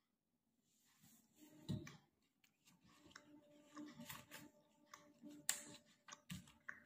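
Quiet sounds of eating by hand: fingers tearing roti and picking at food on a plate, in small clicks and taps. Two low thuds come about two seconds in and near the end.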